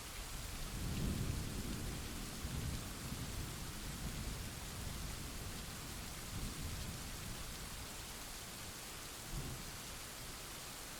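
Thunder rolling under steady rain: a low rumble swells about a second in and slowly fades over several seconds, with a short, sharper boom near the end, while the rain hisses on evenly.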